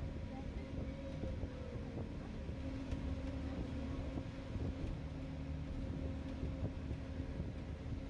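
Disneyland Mark VII monorail running along its beam, heard from inside the cabin: a steady low rumble with a constant hum tone from the drive.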